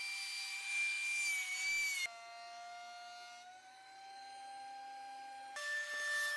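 DeWalt benchtop thickness planer running with a steady high whine as a warped board on a planer sled passes through, its cutter head taking the high spots off the top face. The sound cuts abruptly twice, about two seconds and five and a half seconds in, and is quieter in the middle stretch.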